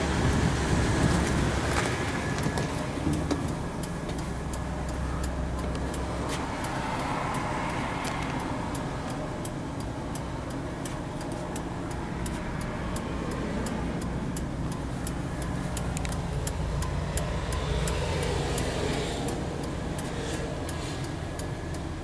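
The GM 8.1-litre V8 gas engine of a parked shuttle bus idling steadily, heard from inside the cab. A regular light clicking runs over it.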